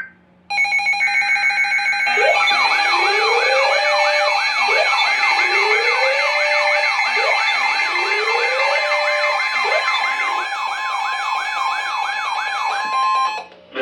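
Several electronic sirens sounding at once: a fast yelp sweeping up and down about three times a second and a slower wail rising every two seconds or so, over steady alarm tones. The steady tones start about half a second in, the sirens join about two seconds in, and everything cuts off just before the end, ahead of a warning for a severe thunderstorm and tornado.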